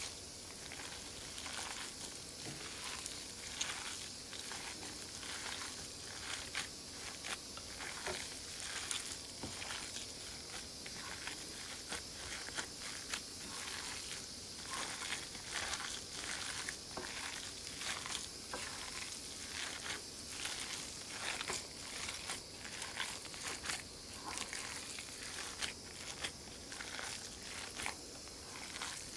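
Hands squishing and kneading a raw ground-meat mixture in a glass bowl: an irregular run of small crackles and squelches, with no steady rhythm.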